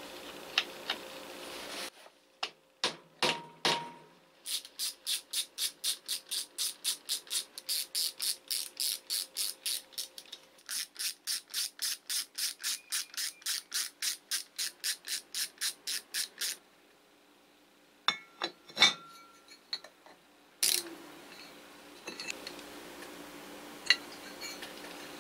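Ratcheting screwdriver with a hex bit clicking steadily, about three clicks a second in two long runs, as it drives the screws of a blower impeller's hub flange. A few sharp metal knocks and clicks come from the parts being handled before and after.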